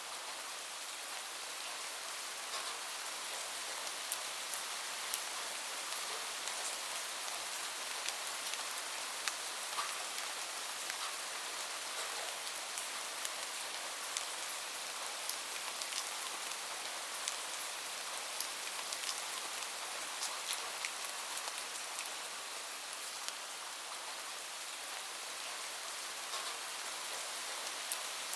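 Steady rain falling: an even hiss with many scattered, sharper drop ticks.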